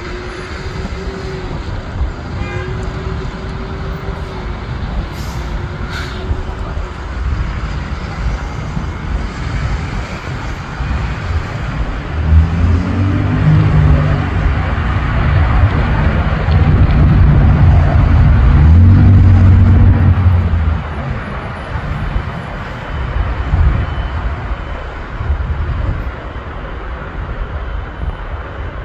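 Road traffic passing close by over a steady low rumble. A car's engine grows loud from about twelve seconds in, changes pitch several times, and fades after about twenty seconds.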